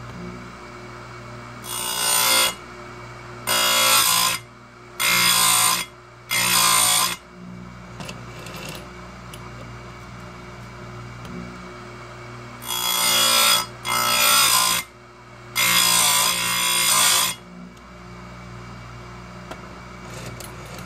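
Oregon 410-120 bench chain grinder's motor humming steadily while the grinding wheel is brought down onto the chainsaw chain's cutters. It makes seven loud grinding passes of about a second each: four in quick succession about two seconds in, then three more after a pause.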